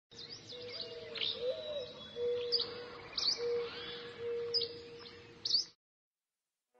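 Birds chirping and calling, many short sharp chirps over a held lower whistling note; the sound cuts off suddenly near the end.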